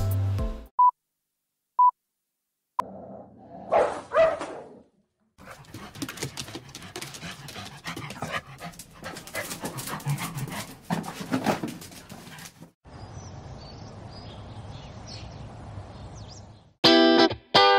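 Dogs at grooming: a short whining cry, then a stretch of clicks and knocks mixed with barks and whimpers, signs of a stressed dog, then a steady hiss. Two short beeps come near the start, and guitar music comes in near the end.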